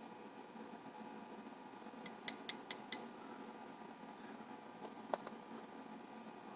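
Small metal lock parts clinking during the re-keying of a padlock cylinder: five quick, ringing metallic clinks within about a second, then a single lighter click about two seconds later.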